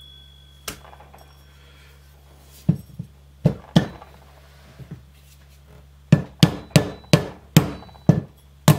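A mallet knocking a pillow-block bearing down onto a pulley shaft. There are a few sharp knocks, then from about six seconds in a quicker run of about eight, roughly three a second.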